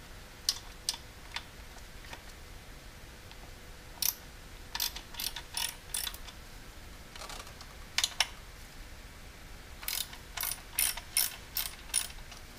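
Ratchet wrench with an 8mm six-point socket clicking in short irregular runs as it works the throttle body bolts loose, with a quicker run of about six clicks near the end.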